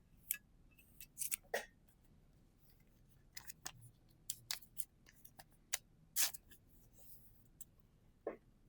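Pokémon booster pack and trading cards being handled: a run of short, sharp crinkles and snaps of the foil wrapper and card stock, coming irregularly with a few louder ones, and a brief sliding swish near the end.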